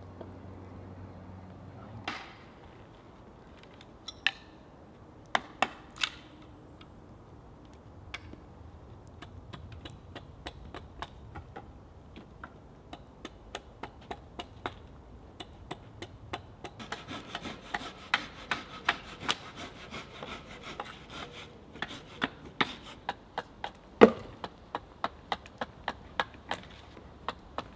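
A blade carving a green-wood blank braced on a log chopping block: scattered sharp cuts, then a quick run of shaving strokes in the middle, and one loud chop near the end.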